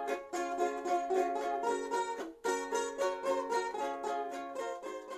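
Background music: a quick, lively tune of rapidly repeated plucked-string notes, with a brief break a little over two seconds in.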